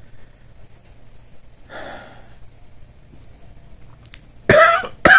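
A person exhales audibly, then gives two short, sharp coughs in quick succession near the end.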